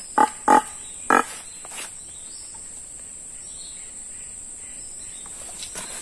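Three short, sharp calls blown on a hand-held muntjac (barking deer) caller within the first second or so, imitating the deer's bark. After them, a steady high insect drone.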